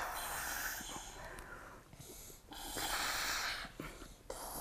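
Air blown through drinking straws into bowls of foamy glue-and-detergent slime, in long breathy puffs: two of them, with a third starting near the end.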